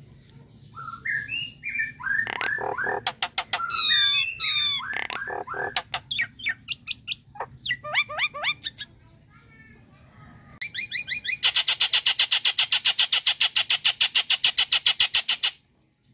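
Common myna singing: a varied run of whistled glides, chatter and clicks, then, after a short pause, a loud, fast rattling series of about ten notes a second lasting some four seconds, which stops abruptly.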